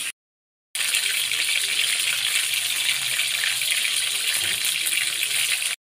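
Breaded chicken pieces deep-frying in hot oil in a wok: a steady sizzle that starts about a second in after a moment of silence and cuts off just before the end.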